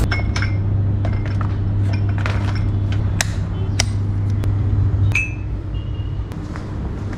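Electric kettle and ceramic mug being handled: scattered clicks and knocks of the kettle's plastic body and lid, and a short ringing clink about five seconds in, over a steady low hum.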